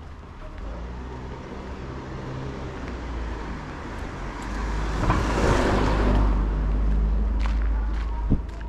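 A car drives past close by. Its engine hum builds, the tyre rush is loudest about five to six seconds in, and then it eases away. A short sharp knock sounds near the end.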